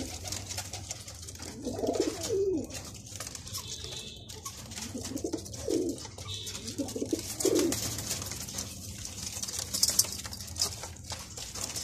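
Domestic high-flyer pigeons cooing, several low warbling coos a few seconds apart.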